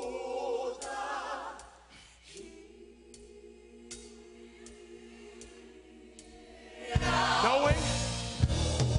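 Gospel choir singing with hand claps. The voices drop to a soft held chord with light claps about twice a second, then about seven seconds in the choir and band come in loudly with heavy percussion.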